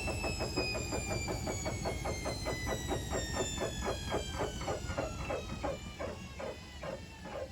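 Indesit Moon SIXL145 washing machine winding down from its 1400 rpm final spin. The motor's whine falls steadily in pitch, while the door seal squeaks in a rhythm that slows and thins out as the drum loses speed.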